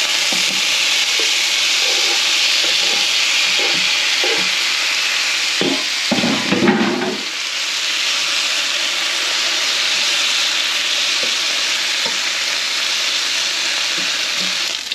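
Octopus pieces sizzling as they sear in oil in a hot cast-iron skillet, a steady hiss. Short clinks and knocks come through as the pieces are laid in and turned with a fork, with a louder stretch of clatter about six seconds in.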